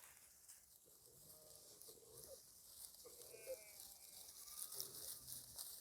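Near silence, with a few faint, short bleats from sheep in the flock.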